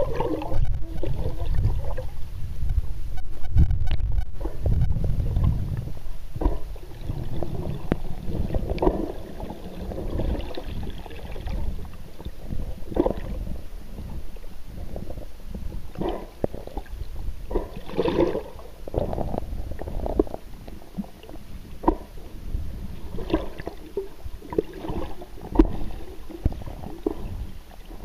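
Muffled underwater sound from a camera held below the surface: a low rumble of moving water, heavier for the first few seconds and then easing, with many irregular clicks and pops.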